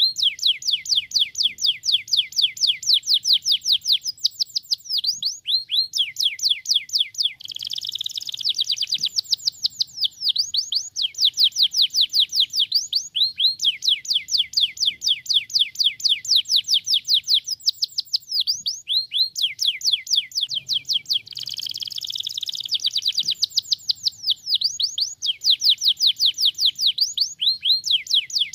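Domestic canary singing: long, fast trills of repeated downward-sweeping notes, each phrase running a few seconds before switching to another. Denser, rolling passages come about eight seconds in and again past twenty seconds.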